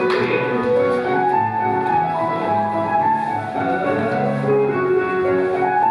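Scottish country dance music for a reel, playing steadily: a melody of short held notes over a steady accompaniment.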